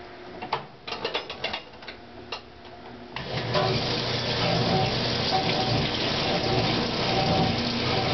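The timer dial of a 1957 Speed Queen washer clicking as it is turned, then about three seconds in water starts rushing into the tub as the fill begins and keeps running.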